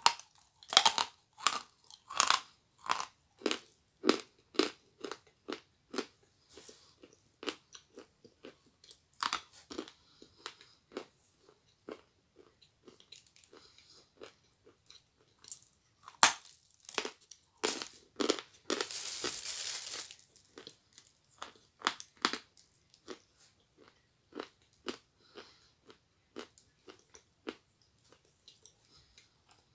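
Crunching and chewing of a dry chunk of Akbulak edible chalk, bitten off close to the microphone. Hard bite crunches come about twice a second at first, then in bunches with quieter, sparser chewing between. A brief rustling hiss sounds about two-thirds of the way through.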